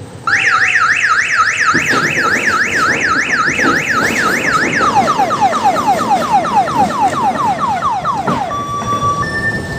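Loud electronic siren on an odong-odong mini tourist train, switching on sharply with a fast up-and-down warble about four times a second. About halfway through it changes to a quick repeating downward sweep. Near the end it gives way to two steady tones taking turns.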